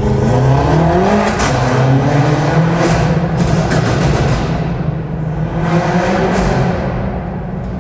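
BMW F10 M5 Competition's twin-turbo V8, Stage 2 tuned, accelerating hard, its pitch rising over the first couple of seconds and again near the end. Several sharp exhaust cracks are mixed in.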